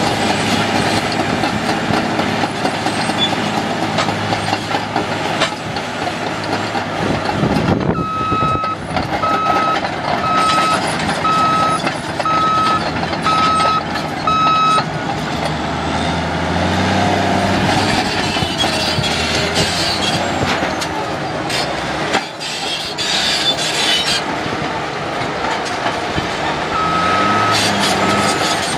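Caterpillar D8T crawler dozer's diesel engine running steadily with track clatter. Its reverse alarm beeps about once a second for several seconds in the middle as the dozer backs up, and starts beeping again near the end.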